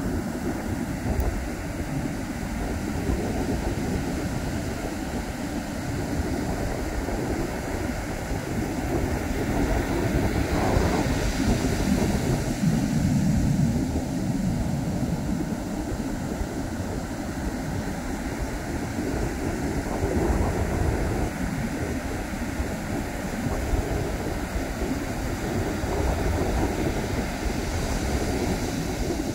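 Wind buffeting the microphone together with the wash of surf: a steady, low, rumbling noise that swells a little about halfway through.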